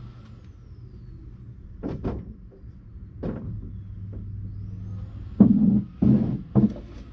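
A vacuum cleaner runs in the next room, a steady low hum muffled by the wall. Over it come a few sharp knocks, then a quicker run of louder knocks and thumps near the end.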